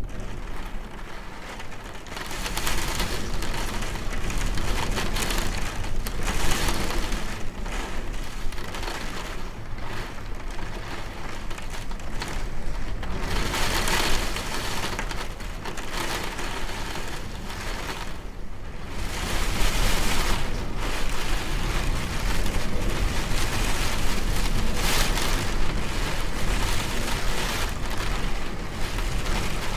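Storm sound effect: heavy rain over a constant low rumble, with louder swells of noise every few seconds.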